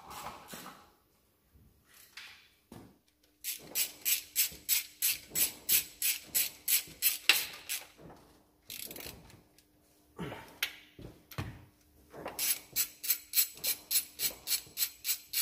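Ratchet wrench clicking in quick runs of about four or five clicks a second as a bolt is turned at the engine-to-gearbox bell housing joint. There are two runs with a pause of a few seconds and a few single knocks between them.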